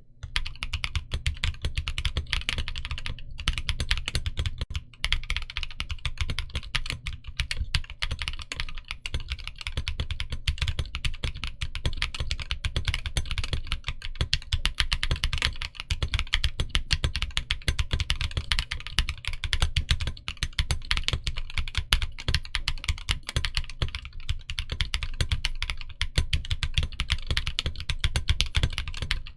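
Continuous fast typing on a Parallel Sequence 65 mechanical keyboard with Mekanisk Ultramarine switches. Rapid keystrokes clack and bottom out with a deep thud under each one.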